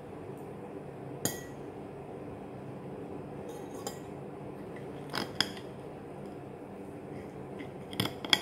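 Metal fork clinking against a plate a handful of times while eating, the loudest clinks about five seconds in and near the end, over a steady low hum.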